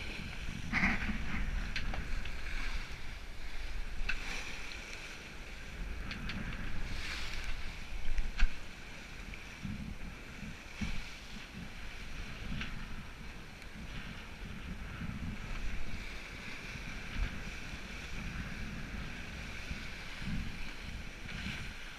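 Wind buffeting the microphone and water rushing along the hull of a sailing yacht heeled under sail, a steady rumble and hiss with a few sharp clicks and knocks.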